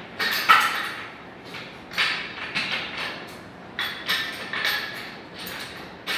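Handling noise during sofa assembly: short, irregular scrapes and knocks of furniture parts being moved, the loudest about half a second in.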